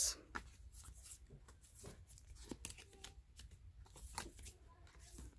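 Thick cardboard pages and lift-up flaps of a children's board book being turned and handled: faint, scattered taps and card rustles.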